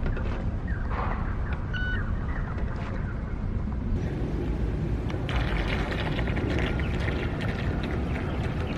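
Steady outdoor background noise with a low rumble and no audible motor whine from the RC bait boat, which runs almost silently. A brief high bird-like chirp comes about two seconds in, and a hiss comes up from about five seconds in.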